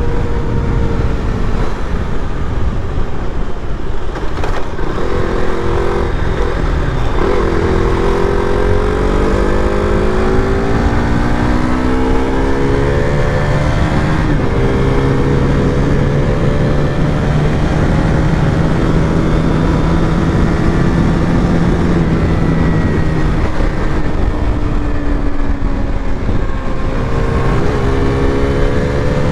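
KTM RC200's single-cylinder engine running under way, its pitch climbing and dropping several times as the bike accelerates and shifts gears, over a steady low rumble.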